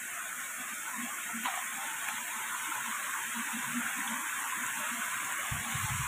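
Shallow monsoon stream rushing and splashing over bare rock slabs, a steady hiss of running water. A few low rumbling bumps on the microphone come near the end.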